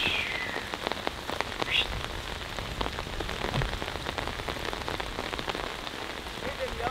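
Steady rain falling, heard as an even hiss full of scattered individual drop hits. A couple of brief high-pitched calls sound over it, one at the start and one about two seconds in.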